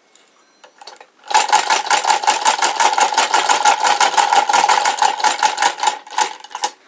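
1891 Birch patent rotary chain-stitch sewing machine running, a rapid even clatter with a steady ringing tone under it; it starts about a second in after a few ticks and stops near the end.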